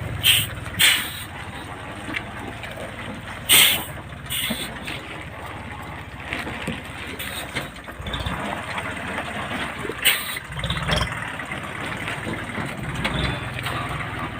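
Tractor engine running steadily, broken by about five short, loud, hissy bursts, the loudest about three and a half seconds in.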